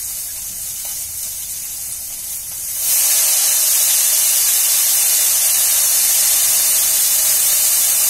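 Hot oil in a frying pan sizzling steadily; a little under three seconds in the sizzle jumps to a much louder, steady hiss as washed coriander leaves go into the oil.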